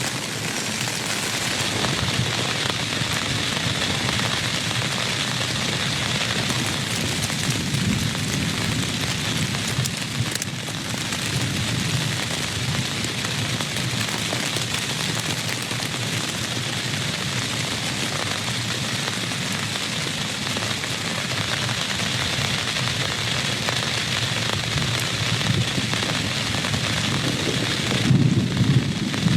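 Steady rain, an even hiss of falling water throughout. Near the end a louder, deeper burst rises over it.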